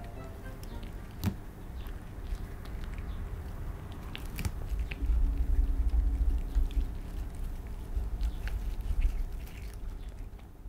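A calico cat chewing and tearing blades of cat grass: irregular crisp crunching clicks, growing louder and heavier from about halfway through.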